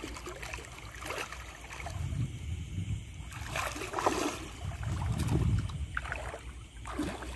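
Water sloshing and splashing as someone wades and gropes along a shallow riverbed for clams, over running stream water. The sloshing swells twice, about two seconds in and again around five seconds in.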